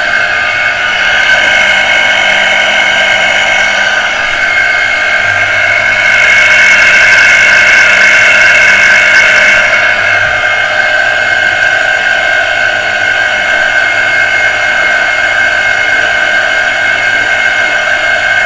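Electric water pressure booster pump motor running steadily with a high-pitched whine, louder for a few seconds in the middle. The noise comes from one worn bearing, as the owner takes it; otherwise the pump runs normally.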